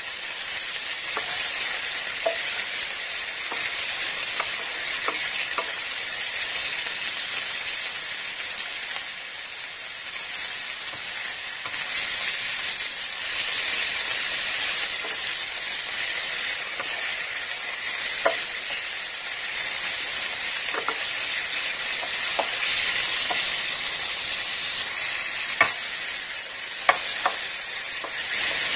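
Sliced chicken sizzling in hot oil in an electric skillet, stirred with a wooden spatula that now and then taps and scrapes the pan, with a few sharper clicks near the end.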